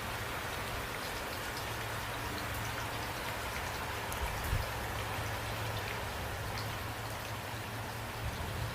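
Steady rain falling, a dense even patter with single drops ticking out here and there, and one louder low knock about four and a half seconds in.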